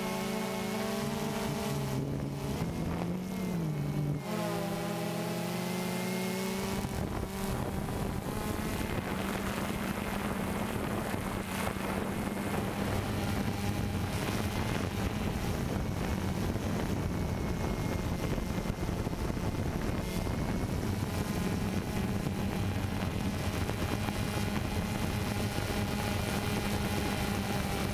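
DJI Phantom 2 quadcopter's motors and propellers buzzing steadily, the pitch bending up and down briefly about four seconds in. From about seven seconds the buzz turns into a denser, even hum.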